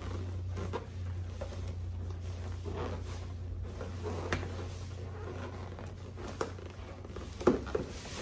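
Latex balloons rubbing and squeaking against each other and against hands as their necks are stretched and tied tight, with scattered short rustles and light clicks, the sharpest one near the end. A steady low hum runs underneath.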